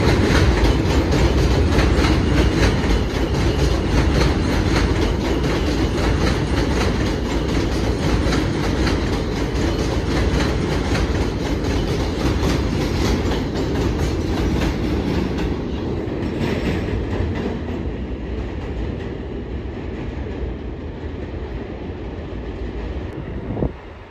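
New York City subway train of R160 cars on an elevated line, its wheels clicking rapidly over the rail joints. It fades steadily as it draws away.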